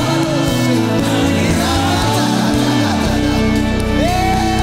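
Live gospel band playing, with singers over keyboard, electric guitar and bass guitar.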